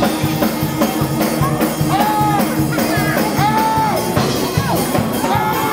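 Church praise music with a driving drum beat under a long held note, and voices crying out and singing over it.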